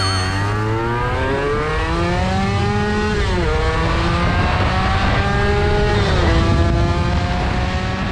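Honda NSR250R (MC21) two-stroke V-twin engine accelerating hard, its pitch climbing and then dropping sharply twice as it is shifted up through the gears.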